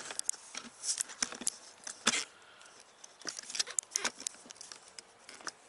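Irregular clicks and knocks of tools and parts being handled in a car's engine bay, with one sharper knock about two seconds in.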